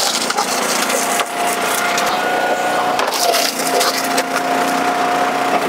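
A northern red oak round cracking and splintering as it is forced through the 7-way box wedge of an Eastonmade 12-22 commercial log splitter: many sharp cracks over the steady drone of the machine.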